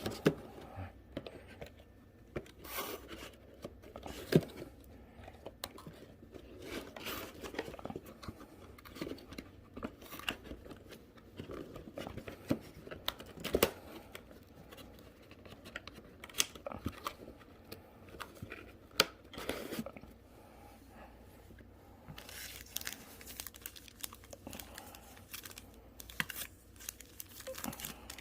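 Foil trading-card booster packs being handled and torn open: wrappers crinkling and tearing, with scattered soft clicks and rustles, and a steadier stretch of crinkling near the end.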